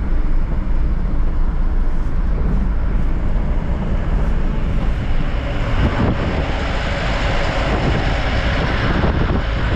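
Goods truck's engine and road noise heard from inside the cab while driving, a steady low rumble. The higher-pitched rushing noise grows stronger about halfway through.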